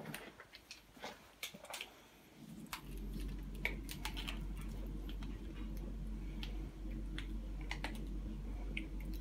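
Scattered small clicks and taps of a pushchair's brake handle and its parts being handled and fitted back onto the handlebar. A steady low hum comes in about two and a half seconds in.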